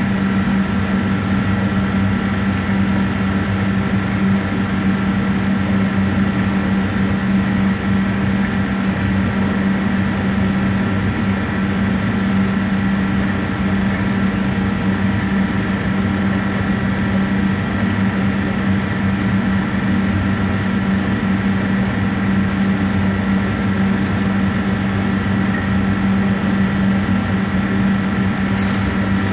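Steady mechanical hum with a strong low drone and a few thin high whining tones, unchanging throughout, with a couple of faint clicks near the end.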